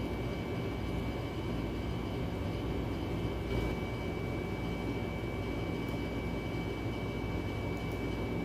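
Steady low mechanical rumble and hum with a thin high whine that gets stronger about three and a half seconds in.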